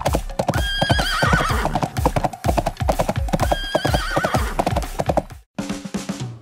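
Galloping hoofbeats of a herd of horses, a rapid clatter, with two wavering whinnies, one near the start and one in the middle. The sound cuts out briefly near the end.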